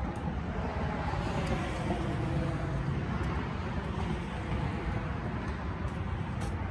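Steady road traffic noise: a continuous low rumble and hiss of passing vehicles.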